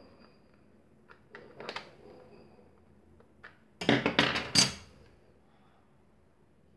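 Hand-tool and plastic handling noise: a few light clicks, then a short burst of sharp knocks and clatter about four seconds in, as a screwdriver and a hand blender's plastic motor housing are handled and set against the workbench.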